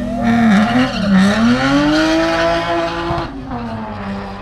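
Classic BMW coupé's straight-six revving hard as it launches off the start line, its tyres squealing in wheelspin. The engine note dips briefly, then climbs steadily for about two seconds and falls away with the squeal a little past three seconds in.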